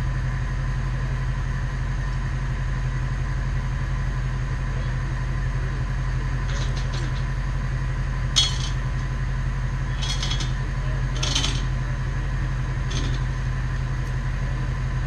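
Bucket truck engine running steadily at an even idle, with a few sharp metal clinks and clanks in the middle of the stretch.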